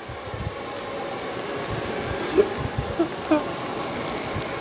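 Steady rushing noise of air being blown hard onto burning charcoal in a grill, building over the first second and then holding even.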